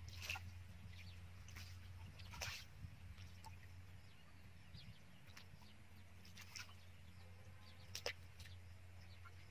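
Faint splashing of hands and a caught fish in shallow muddy water, with a few short sharp splashes, the clearest near the end, over a low steady hum.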